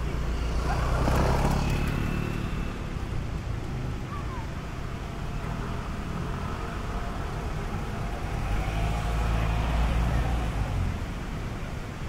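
Road traffic on a city street: cars passing, with a low rumble that swells about a second in and again around nine seconds as vehicles go by.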